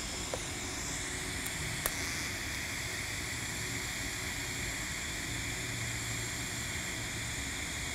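TIG welding arc running on a carbon-steel pipe during a fill pass at 160 amps: a steady hiss, with one sharp click about two seconds in.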